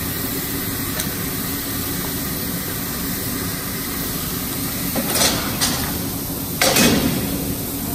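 Steel hand tools scraping and knocking against freshly plasma-cut 20 mm steel plate as the cut part is pried loose on the slatted cutting table. There are a few harsh scrapes in the last three seconds, the loudest just before the end, over a steady machine hum.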